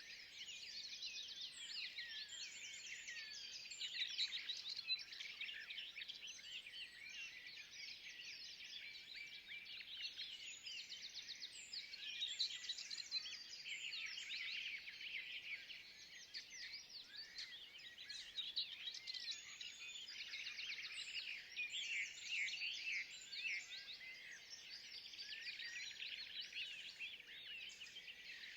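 Forest birdsong: a dense chorus of many small birds chirping and twittering without pause, with overlapping quick high calls.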